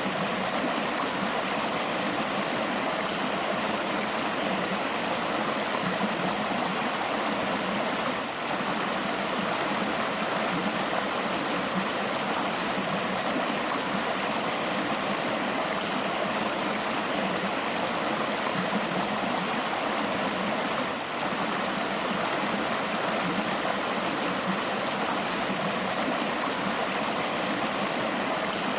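River water flowing steadily: an even, continuous rush and gurgle of moving water, with two very brief slight dips in loudness.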